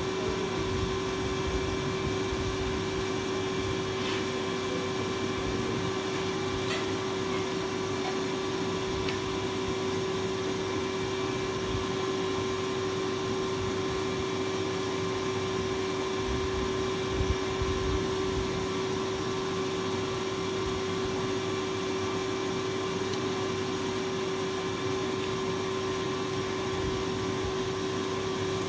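Small electric Tullu water pump running with a steady hum, lifting the supply water.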